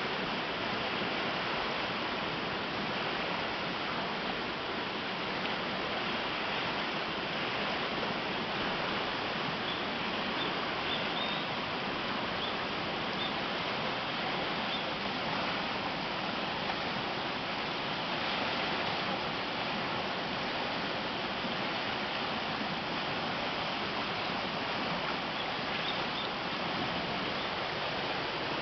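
Garden stream swollen by typhoon rain, rushing water as a steady, even roar. A few faint high chirps sound around the middle and again near the end.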